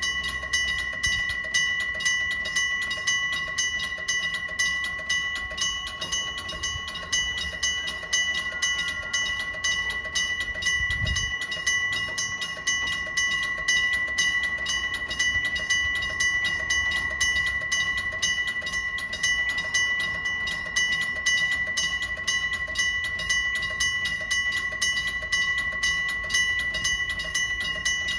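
Electromechanical bell of an old-style railway level-crossing signal ringing continuously: a rapid, even hammering with a steady ringing tone. A low rumble runs underneath, with one low thump about eleven seconds in.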